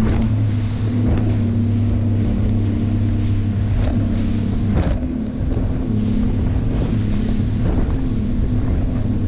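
Bass boat running fast across choppy water: the Mercury outboard's steady drone under a rush of wind and water, with the hull slapping on waves several times and wind buffeting the microphone.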